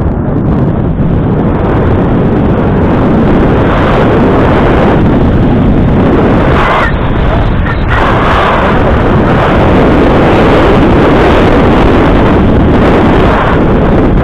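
Loud, steady wind buffeting the camera's microphone while moving fast down a ski run, with a brief drop-off twice around the middle.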